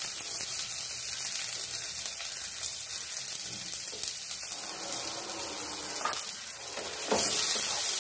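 Chopped onion and green chillies sizzling in hot oil with mustard seeds and cumin in a non-stick pan, the first stage of a tempering. About seven seconds in, a wooden spatula starts stirring them and the sizzle gets louder.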